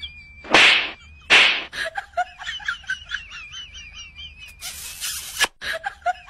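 An African grey parrot and a young macaque squabbling: two loud harsh screeches about half a second and a second and a half in, then a run of quick warbling calls, with a loud hiss about five seconds in.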